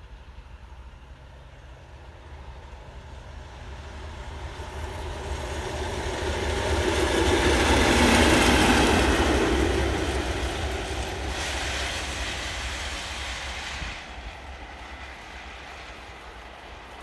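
Diesel locomotive passing at speed along the line: its engine and wheels grow steadily louder, peak about eight seconds in as it goes by, then fade away, dropping off sharply near the end.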